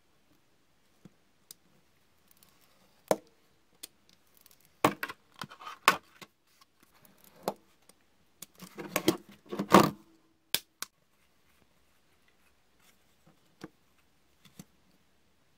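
Utility knife scoring a 1 mm polystyrene plastic sheet against a steel ruler on a cutting mat, a close run of scraping strokes about two-thirds through, with sharp clicks and taps of the sheet and ruler being handled before and after.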